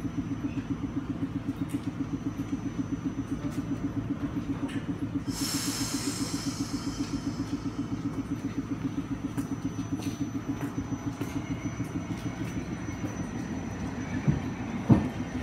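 Hankai Tramway Type 601 tram standing still, its machinery giving a fast, steady chugging pulse of about seven beats a second. There is a burst of air hiss about five seconds in, and two sharp knocks near the end.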